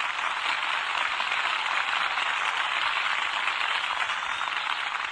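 A large crowd applauding steadily, as a thin, hissy roar of clapping on an old 1940s recording.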